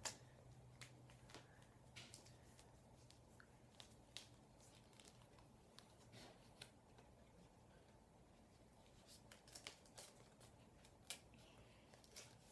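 Faint, scattered clicks and light rustles of hands handling the PVC pipe and duct tape, the sharpest click right at the start.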